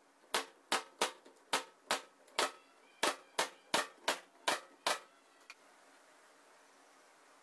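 A quick series of about a dozen sharp knocks, two to three a second, each with a brief ringing tone; they stop about five seconds in.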